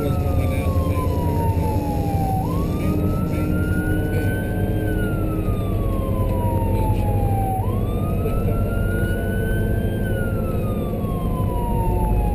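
Emergency-vehicle siren on a slow wail as the vehicle responds to a fire call: each cycle climbs quickly, then falls slowly, about every five seconds. Underneath is the steady rumble of the engine and tyres on the road.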